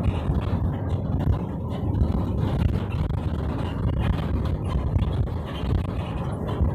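Steady low rumble of a car on the move: engine and road noise while driving.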